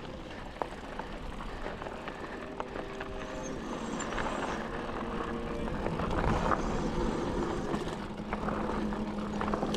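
Mountain bike rolling fast down a dirt trail: a continuous rush of tyre and trail noise, with clicks and knocks as the bike rattles over bumps, rougher and louder a little past the middle.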